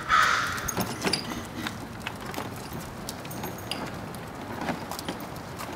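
A crow caws once right at the start. After that come scattered light clicks and taps from a child's kick scooter rolling and being pushed along a concrete sidewalk.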